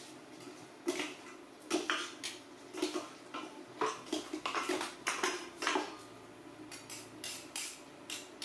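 Metal spoon clinking and scraping against a stainless-steel cooking pot as food is stirred and scooped, in an irregular run of sharp clinks.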